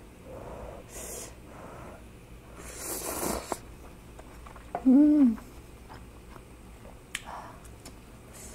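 Ramyun noodles slurped off chopsticks and chewed, with a long hissing slurp about three seconds in. About five seconds in comes the loudest sound: a short hum from the eater that rises and falls in pitch. Quieter mouth clicks and another slurp follow.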